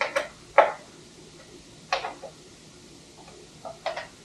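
Hand tools clicking and tapping on metal fittings as bolts are tightened down: about seven sharp clicks, mostly in close pairs, a second or two apart.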